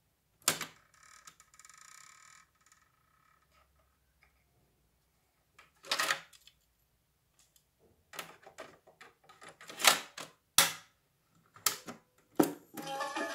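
Mechanical clicks and clunks from a Watson RR5888 boombox's piano-key cassette buttons and its cassette door being opened and handled: a single click, a louder clunk about six seconds in, then a run of clicks near the end. Music starts from the speakers just before the end.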